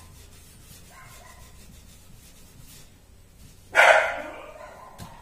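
A pet dog barks once, loudly, about four seconds in.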